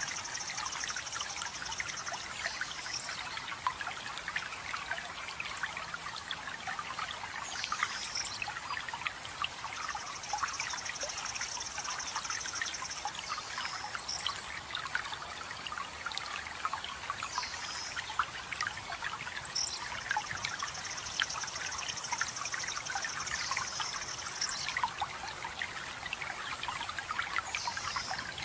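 Small stream or waterfall trickling and splashing steadily, with a songbird singing a high, rapid trill about three seconds long three times, roughly every ten seconds, and short chirps in between.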